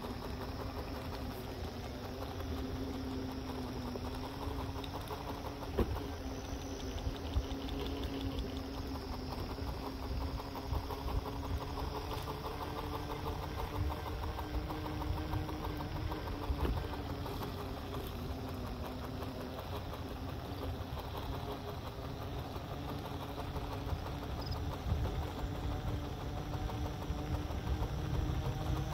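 Halo Rover hoverboard's electric motors whining steadily, the pitch drifting slowly up and down with speed, over a low rumble of the wheels rolling on concrete. Two sharp knocks stand out, one about six seconds in and one about seventeen seconds in.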